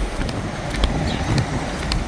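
Wind buffeting the microphone in a low rumble, with light clicks about twice a second.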